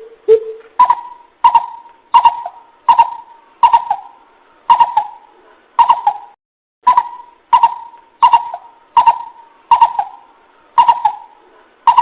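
Coucal call played as a lure: two lower hoots, then a steady series of loud, hollow hoots about one and a half per second, with a short break a little past halfway.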